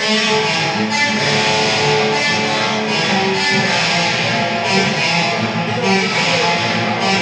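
Guitars played live, with chords strummed about once a second and ringing on between strokes.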